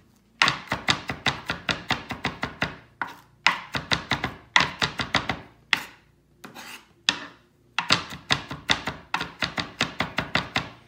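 Chef's knife chopping fresh herbs on a plastic cutting board: quick runs of sharp knocks, about five or six a second, each run lasting a few seconds with short pauses between.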